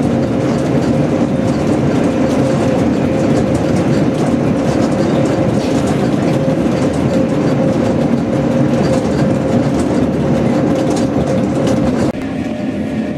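Rack railcar of the Pilatus cogwheel railway running through a rock tunnel: a loud, steady rumble of wheels and drive with a constant hum-like tone over it. The sound changes abruptly and drops near the end.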